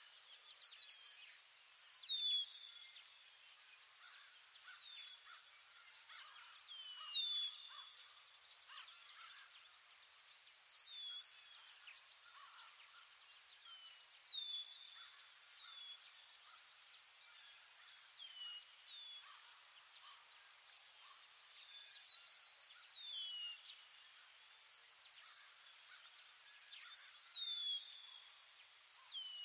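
Ambient forest soundscape: a steady, fast-pulsing high insect trill with short falling bird chirps repeating every second or two.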